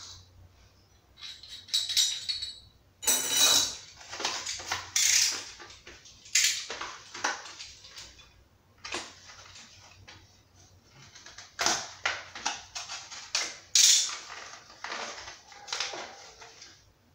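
Irregular bursts of handling noise: the crinkling of a plastic blister pack being worked open, mixed with clinks of small sink drain valve parts set down on the stone counter.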